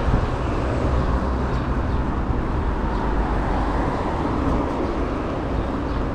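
City road traffic with steady wind rumble on an action camera's microphone while cycling.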